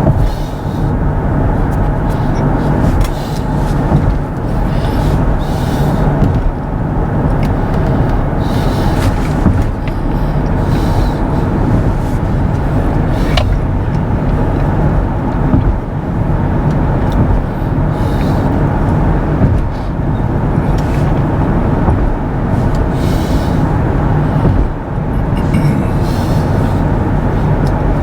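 Steady road and tyre noise with wind rush from a car travelling at road speed. It is a dense low rumble with brief swells of higher hiss.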